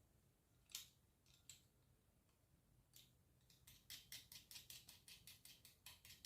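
Faint, sharp metallic clicks of small nuts, washers and screws being fitted by hand: a few separate clicks, then a quick, even run of ticks, about six a second, in the last couple of seconds as a fastener is turned.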